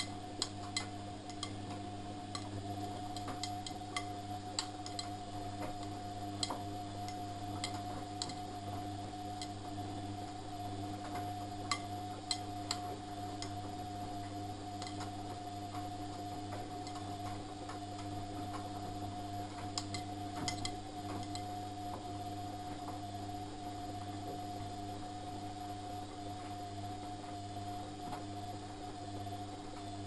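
Front-loading washing machine in the wash phase of a cottons 60 °C programme, the drum turning with the load tumbling. A steady motor hum runs throughout, with scattered light clicks and taps from the tumbling laundry.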